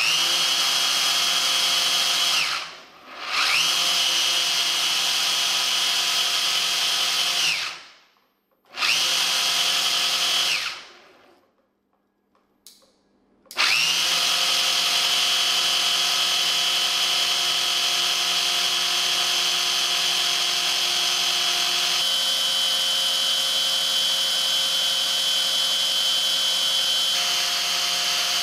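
A 775 DC motor driving a 3D-printed planetary gearbox and flexible-impeller water pump: a steady high whine over gear whir, switched on and off several times. Each start has a short rise in pitch. It dips briefly about three seconds in, stops for under a second around eight seconds, and stops again for about three seconds from eleven seconds, then runs steadily through the rest.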